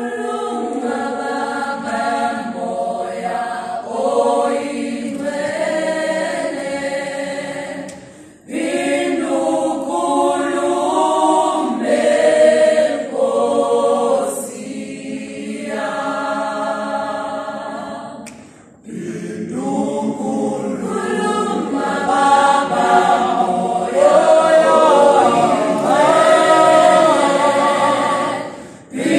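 Mixed-voice gospel choir singing a cappella in several parts. The sustained chords come in phrases, broken by short pauses about eight and nineteen seconds in.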